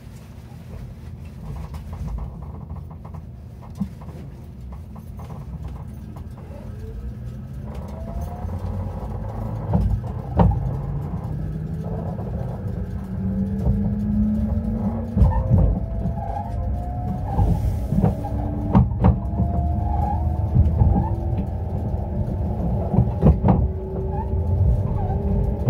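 Electric train pulling away from a station, heard from inside the car: the traction motors whine in several tones rising together as it gathers speed over a low running rumble that grows louder. Pairs of clacks come as the wheels cross rail joints.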